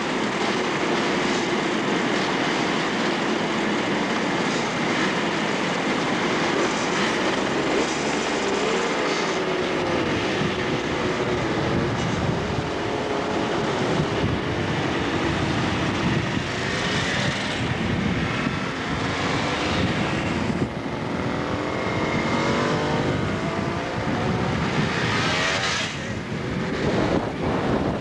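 Motorcycle engines running on the move, the pitch rising several times in the second half as they accelerate, over a rush of wind and road noise.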